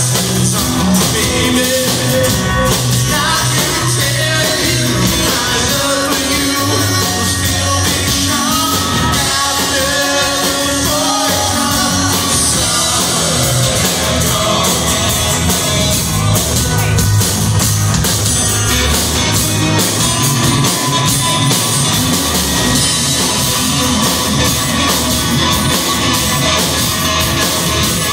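Live rock band playing an unplugged set: several acoustic guitars with male vocals sung into microphones.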